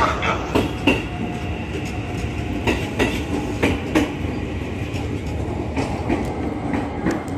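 KRL Commuterline electric commuter train running past, a steady rumble broken by irregular clacks of its wheels over the rail joints.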